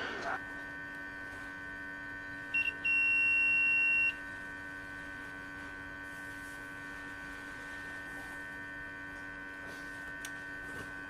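Multimeter continuity beeper sounding with its probes on a MOSFET's pins: a short blip about two and a half seconds in, then one steady high beep of just over a second. Under it runs a constant electrical hum.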